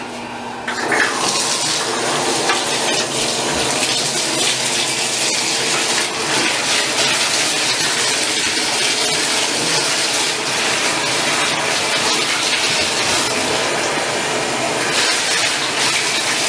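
Bathtub tap running, water pouring steadily into the tub; it comes on louder about a second in.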